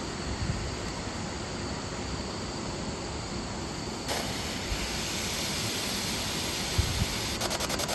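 Spirit box radio scanner sweeping through stations: a steady hiss of radio static that grows hissier about four seconds in, then turns into a fast, even chopping near the end. A couple of faint knocks come just before that.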